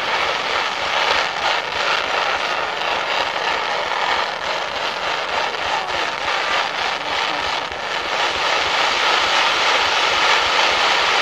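Ground fireworks: fountains (gerbs) spraying sparks with small comets and stars firing up among them, making a continuous jet-like rushing hiss laced with fast, dense crackling.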